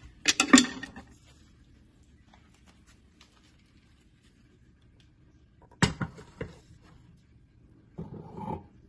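Kitchen handling noises: a few sharp knocks and clatters of a utensil against a pot while marinated chicken pieces are stirred and arranged in it, with a low steady hum between them.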